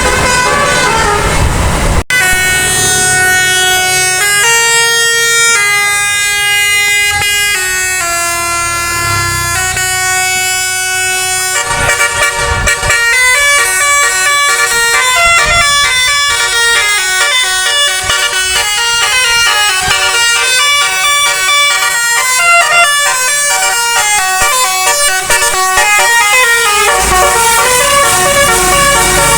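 Bus telolet musical air horns playing tunes. First comes a slow sequence of held notes changing about once a second, then about 12 seconds in a fast, busy run of many short notes.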